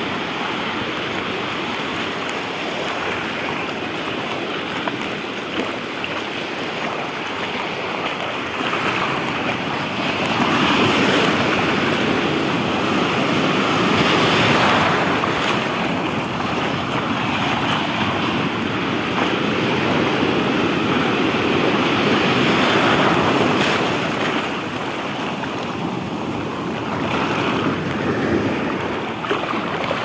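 Ocean surf breaking and washing over the sand in the shallows, a continuous rushing wash that swells louder twice as bigger waves break.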